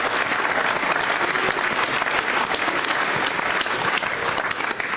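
Studio audience applauding: dense, steady clapping that begins to fade near the end.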